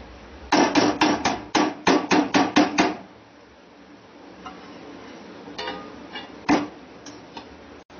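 Steel spoon clanking against a steel kadhai while stirring a thick vegetable fry: a quick run of about ten sharp strikes, then a pause and a few single knocks.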